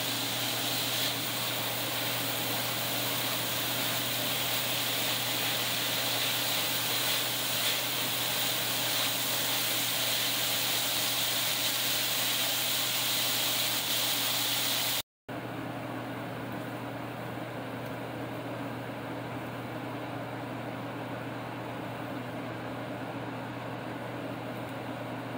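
Ground meat frying in a cast iron skillet, a steady sizzling hiss as its juices cook off, over a steady low hum. About fifteen seconds in, the sizzle drops to a softer level.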